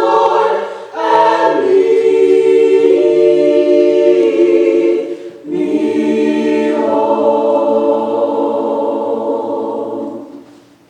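Choir singing in long held chords, phrase by phrase, with two short breaks for breath; the last chord fades away near the end.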